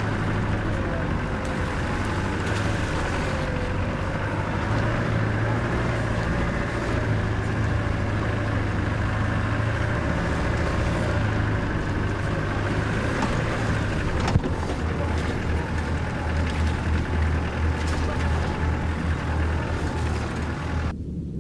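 Four-wheel-drive vehicle's engine running steadily on a rough unsealed track, heard from inside the cab, with a single sharp knock about two-thirds of the way through, after which the engine note drops slightly.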